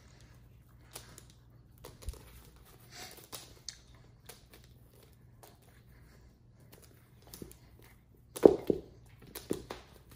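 Scattered soft rustles and light taps of a cat playing, with a louder scuffle of bumps and rustling about eight and a half seconds in.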